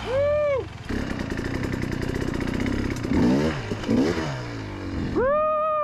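Dirt bike engines running and revving, with pitch swinging up and down about three seconds in. Two short, high-pitched squeals arch up and down, one at the start and one near the end.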